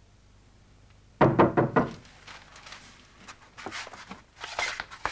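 Knocking on a wooden door: a quick run of about five knocks a little over a second in, followed by faint movement and footsteps.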